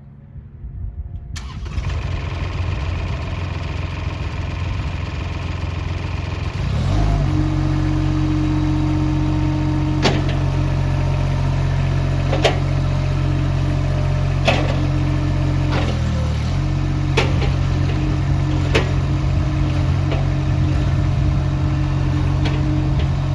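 Mini skid steer loader engine running steadily, throttle raised about seven seconds in, with a brief dip in engine note near the sixteen-second mark. Sharp metallic clanks come five or six times over the middle of the stretch.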